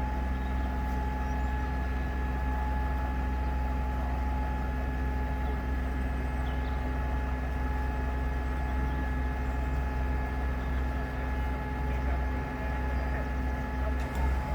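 An engine running steadily at constant speed, a low rumble with a steady whine over it.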